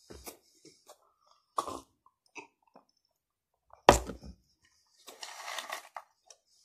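A person eating French fries fast by hand, with scattered short chewing and mouth sounds. One sharp, loud thump comes about four seconds in.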